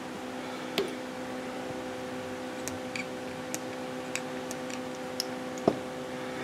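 Light metal clicks and ticks, about seven spread unevenly, as a turbocharger's turbine shaft with its new bushings and oil spacer is handled with a thin metal tool and offered up to the bearing housing. A steady low hum runs underneath.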